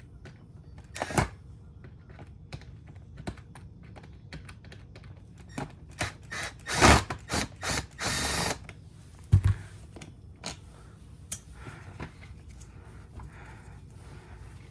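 Hand tools working the screws of a Honda EU2200i generator's plastic cover: scattered clicks and ticks of metal on plastic, a louder clatter about seven seconds in, then a brief steady rasping noise about a second later.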